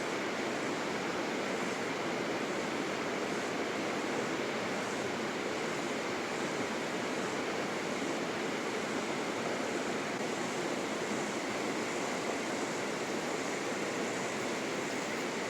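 Fast-flowing river water rushing in a steady, unbroken wash of noise.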